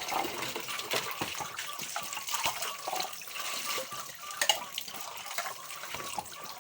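Tap water running into a kitchen sink while dishes are washed by hand, with scattered clinks and knocks of dishes, a sharper one about four and a half seconds in.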